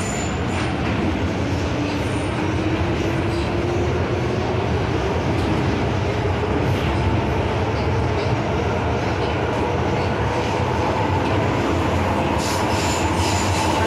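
MTR M-Train electric multiple unit running between stations: a steady rumble of wheels on rail with a motor whine that slowly rises in pitch as the train gathers speed. A few light clicks come near the end.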